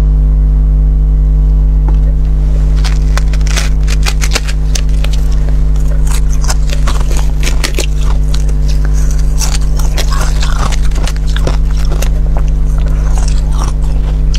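Fingernails scratching and picking at the frosty surface of a large balloon-frozen ice ball, making quick crackling scratches and clicks that start a couple of seconds in. A loud, steady low hum lies under them.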